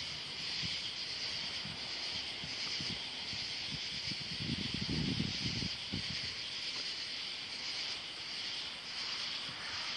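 A summer-night insect chorus: a steady, high, hissing drone of calling insects. About halfway through, a low rumble swells for a second or so.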